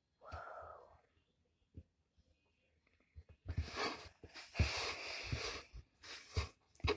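A person sniffing and breathing close to the microphone: one breath right at the start, then a string of noisy sniffs and breaths from about three and a half seconds in.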